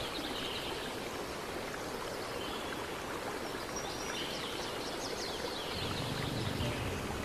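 Steady outdoor background hiss with no distinct source, with a few faint high bird chirps about four to five seconds in.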